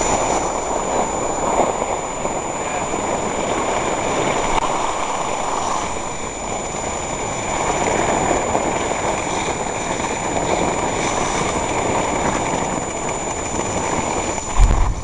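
Steady rushing noise of skis sliding on snow and wind, swelling and fading slowly, over a thin steady high whine. A brief low bump comes near the end.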